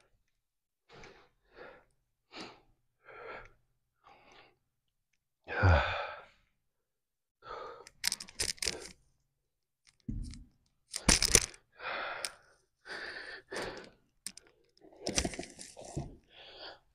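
A man breathing hard and sighing, out of breath after a set of leg exercises. Faint short exhales come about once a second, then louder, sharper blown-out breaths follow from about a third of the way through.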